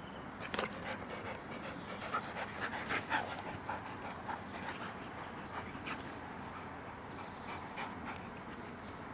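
Belgian Tervuren dogs panting, a run of short breaths that is strongest in the first few seconds and then fainter.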